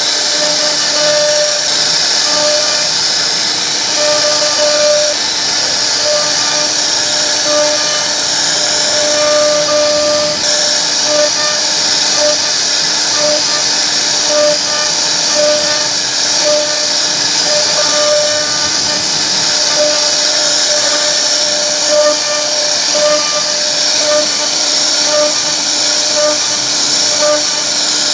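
CNC router spindle carving a relief pattern into a wooden panel: a steady high whine of the spinning bit cutting wood, with short tones that come and go as the machine moves along its path.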